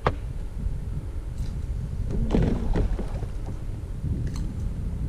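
Wind buffeting the microphone, a steady low rumble, with a sharp click right at the start and a brief louder sound about two and a half seconds in.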